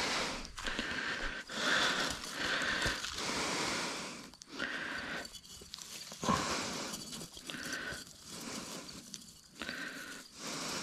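Handling noise as a rope is uncoiled by hand over a wire-mesh prawn pot: uneven rustling and scraping, with a few brief pauses and a sharp click a little past halfway.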